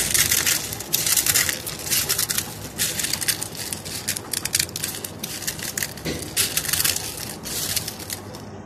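Dry cornflakes being crushed by hand on a plate: a dense, crackling crunch in quick repeated surges that grow a little softer toward the end.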